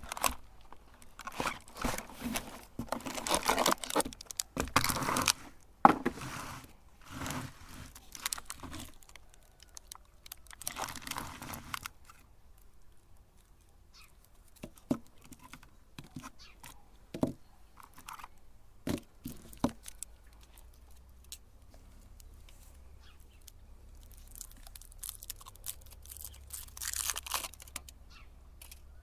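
Foil candy wrappers being crinkled and torn, in dense irregular crackling for the first dozen seconds, then a few scattered clicks and taps, with a short burst of crinkling again near the end.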